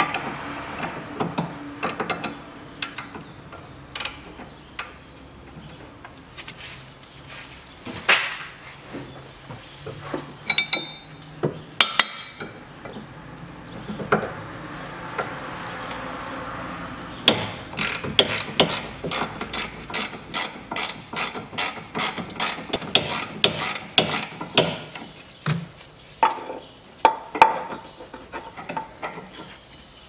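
18 mm ratcheting wrench clicking as it backs off the lower nut of a front stabilizer link, the pin held with a second wrench. There are scattered clicks and clinks at first, then a steady run of ratchet clicks at about three or four a second through the latter half.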